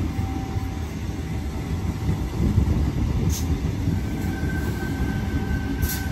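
Sydney Trains Tangara electric train running slowly past the platform, with a steady rumble of wheels on rail. A faint steady high tone comes in about four seconds in, and there are two brief high-pitched hisses, about three and six seconds in.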